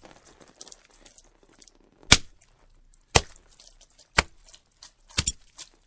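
A series of sharp knocks about once a second, starting about two seconds in, one of them doubled, with fainter clicks between.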